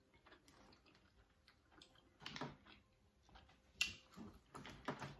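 Faint chewing and mouth sounds, then a few sharp cracks and clicks, the first a little under four seconds in, as the shell of a king crab leg is handled and worked open.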